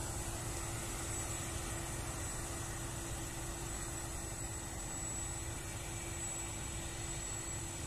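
Claas Lexion combine harvester running as it harvests: a steady engine and threshing drone with a constant tone through it.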